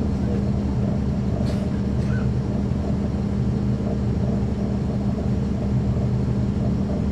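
Caterpillar C13 ACERT inline-six diesel engine of a 2009 NABI 40-SFW transit bus, heard from the rear seats inside the cabin, running at a steady pitch. A faint click comes about a second and a half in.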